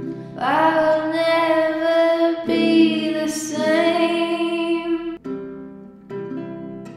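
Acoustic song: a woman sings long held notes over acoustic guitar, sliding up into the first note. About five seconds in the voice stops and plucked guitar notes carry on alone.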